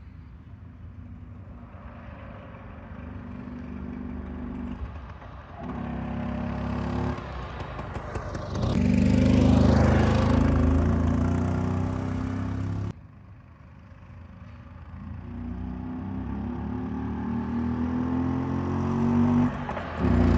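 Vespa VB1 scooter's two-stroke single-cylinder engine running and revving, its pitch rising and falling and the sound growing louder. It drops away suddenly about two-thirds of the way through, then builds up again: the restored engine is running.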